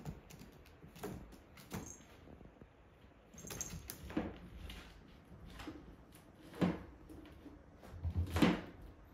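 Scattered thumps, scuffs and knocks of kittens scampering, pouncing and landing on a tile floor, the loudest near the end.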